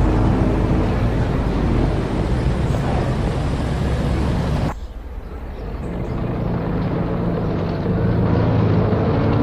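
City street ambience of motor traffic: vehicle engines running with a steady low rumble. About halfway through, the sound cuts abruptly to a duller, quieter stretch, then the engine rumble builds up again.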